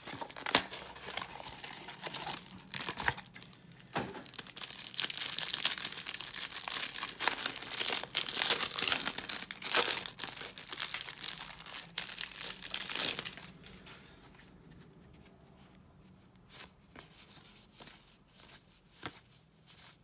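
A trading-card hanger box being torn open and the plastic-wrapped pack inside crinkled and ripped open, loudest for several seconds in the middle. After that, softer scattered ticks and rustles as the cards are handled.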